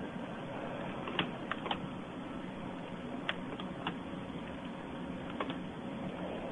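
Scattered single clicks from a laptop's keys and trackpad being pressed, about seven in all, over a steady hiss.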